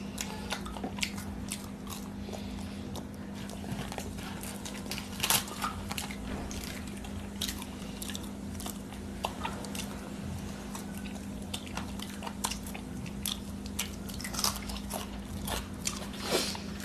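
Close-up mouth sounds of people eating chicken curry and luchi with their hands: chewing and biting, with irregular sharp clicks and crunches. A steady low hum runs underneath.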